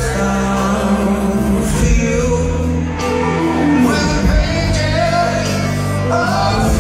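Live rock band playing: a male singer's held, sliding vocal lines over electric guitars, bass and drums, heard from the audience.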